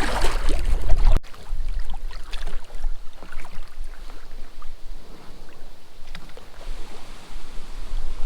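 Wind buffeting the microphone for about a second, then, after an abrupt cut, paddle strokes splashing and water lapping against a packraft, with scattered small drips and splashes. Wind rumble returns near the end.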